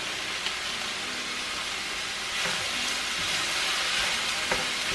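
Crumbled chicken sausage sizzling as it browns in a frying pan, stirred with a wooden spoon, with a few faint clicks. The sizzle gets a little louder about halfway through.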